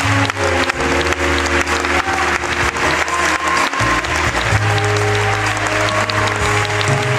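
Live band playing an instrumental passage of a pop ballad, held chords over a steady bass, with audience applause over the music.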